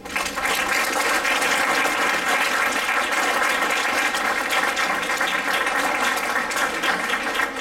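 An audience applauding steadily, many hands clapping at once. The applause breaks out right at the start.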